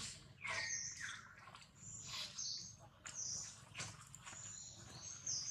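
Short, high-pitched animal chirps and squeaks, one or two a second, several of them falling in pitch.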